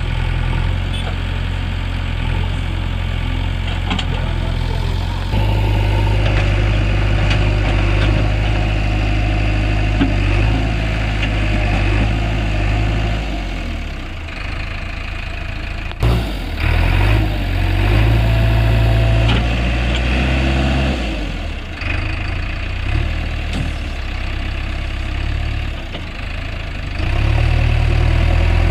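JCB 3DX backhoe loader's diesel engine running as the machine drives and works its arm. It runs harder from about five seconds in, breaks off sharply about halfway, and picks up again near the end.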